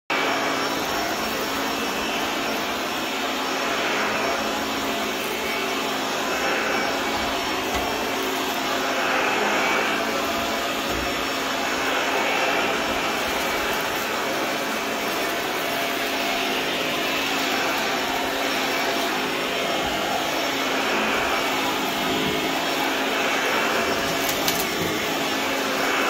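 Shark Lift-Away upright vacuum cleaner running steadily on carpet, its motor hum constant under a whoosh that swells and fades every couple of seconds as it is pushed back and forth.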